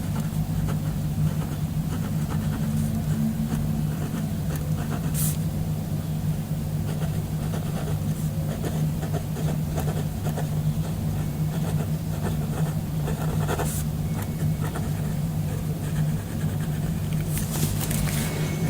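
A steady low hum, with a few sharp clicks or taps about five seconds in, around fourteen seconds, and a short cluster near the end.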